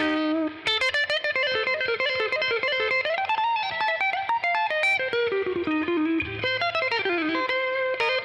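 PRS CE24 electric guitar played on its neck pickup through an amplifier: a lead line of quick single notes, with a note bent up and back about three seconds in.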